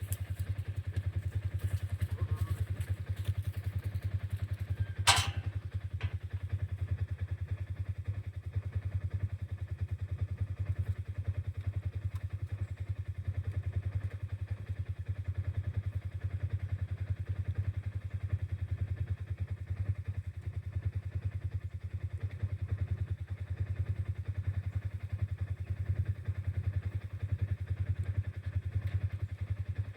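A vehicle engine running steadily with a low, even drone. There is one sharp knock about five seconds in.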